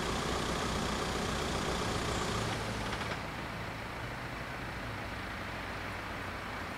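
Engine of a waiting road vehicle idling with a low, even throb. About three seconds in it drops away and leaves a quieter steady hum.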